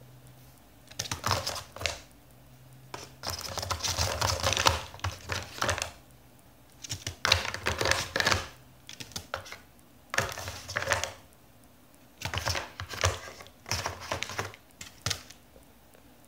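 Toucan's beak tapping and rummaging in a cardboard phone box and its packaging, in several bursts of rapid clicks and rustles, the longest about three seconds.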